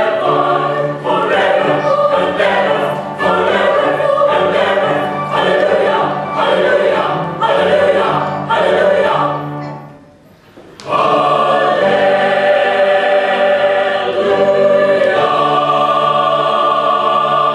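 Mixed choir of women's and men's voices singing, in short rhythmic phrases at first. After a brief break about ten seconds in, they sing long held chords.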